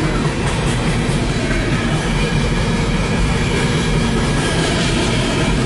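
Freight cars of a long mixed-freight train rolling steadily past: the continuous rumble and clatter of steel wheels on the rails.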